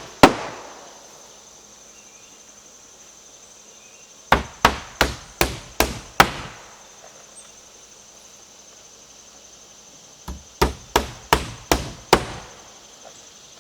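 Hammer driving nails into wooden battens: one hard blow at the start, then two runs of five or six quick, evenly spaced blows, a few seconds apart. A steady high insect drone carries on behind.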